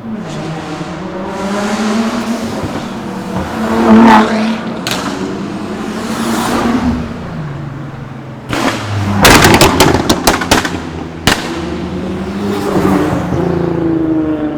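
Nissan GT-Rs revving as they pull away, the engine note rising and falling several times. About nine seconds in comes a rapid string of loud exhaust pops and crackles, then a single sharp pop a second later.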